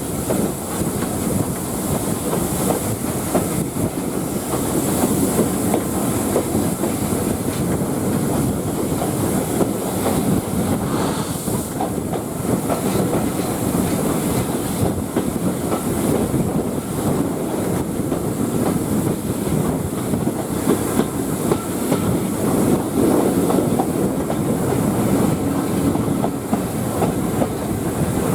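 Train running steadily along the track: a continuous rumble with irregular wheel-on-rail clatter and a high hiss.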